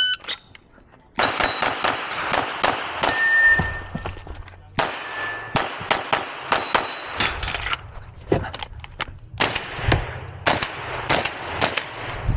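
A shot timer's short start beep, then about a second later rapid gunfire begins, with steel targets clanging and ringing between shots. There is a brief pause about four and a half seconds in before the shooting resumes.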